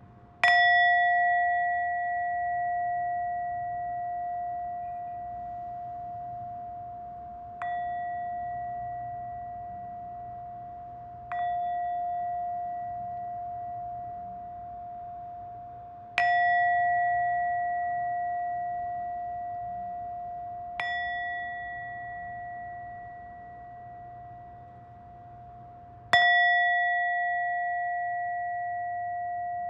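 A bell struck six times, every four to seven seconds. Each strike rings on at the same steady pitch and fades slowly, and some strikes are harder than others.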